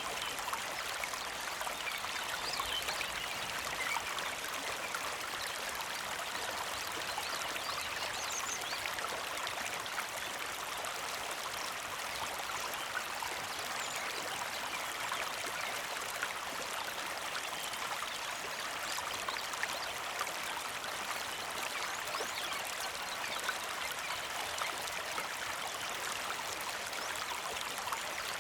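A small mountain creek flowing steadily, with a constant trickling, splashing rush of water.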